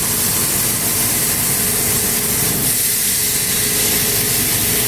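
Two-head laser cutting machine cutting wooden die board: a steady loud hiss with a faint steady tone beneath.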